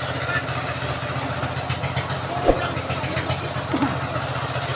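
Fishing boat's inboard engine running steadily at sea, a low even throb with a fast regular pulse. A single knock sounds about halfway through.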